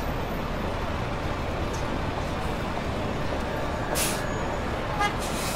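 Busy city street ambience: steady traffic rumble and noise, with a short hiss about four seconds in.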